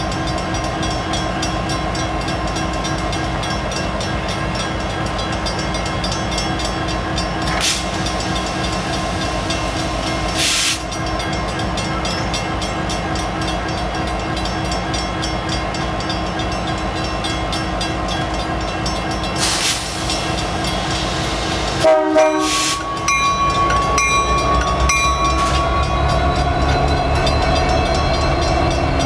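Diesel-electric locomotive idling, with a few short air hisses. About three-quarters of the way through its horn sounds briefly. The engine then throttles up with a rising whine as the locomotive starts to move.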